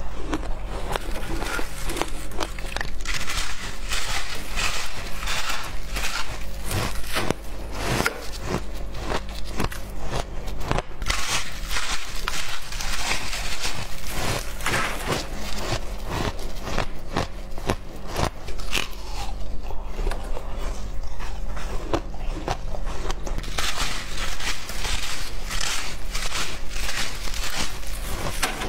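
Close-miked crunching of packed shaved ice being bitten and chewed: a dense, irregular run of crackling crunches. A low steady hum lies underneath.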